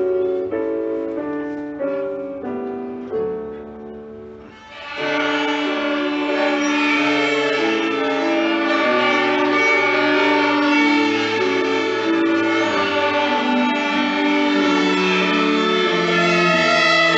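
A piano plays a short run of separate notes, then about five seconds in a group of children's violins comes in together, bowing a melody of held notes.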